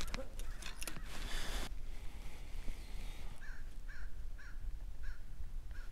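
A bird calling outdoors: five short calls in a row, about half a second apart, starting a little past the middle. Before them, in the first second and a half, there is a rustling noise with a few clicks.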